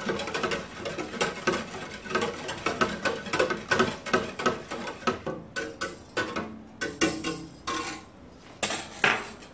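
Wire whisk stirring brine in a clear plastic food container: a quick, rapid run of clicks and sloshes, stirring to dissolve the salt and sugar. The stirring thins out about eight seconds in, with a couple of louder clacks near the end as the whisk comes out of the container.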